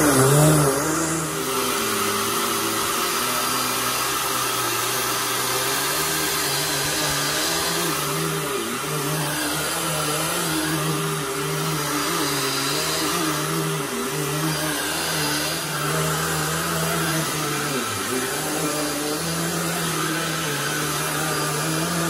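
Dirt Devil Vision Wide Glide bagless upright vacuum cleaner running on carpet, its motor and brush roll humming steadily, the pitch wavering slightly as it is pushed back and forth.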